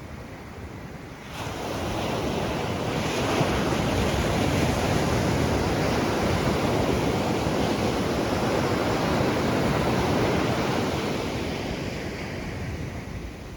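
Ocean surf: a wave swells and breaks about a second and a half in, its wash running on for several seconds before easing off near the end, with some wind on the microphone.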